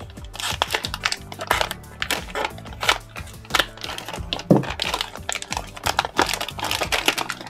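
Plastic packaging bag crinkling and rustling in irregular crackles as it is worked open by hand. A dull knock comes about four and a half seconds in.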